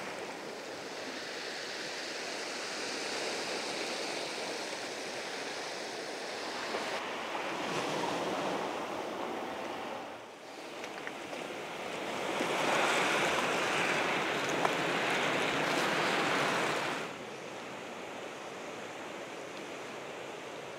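Sea waves breaking and washing over rocks and shingle: a steady rushing that gets louder for a few seconds past the middle, with sudden changes in level at a few cuts.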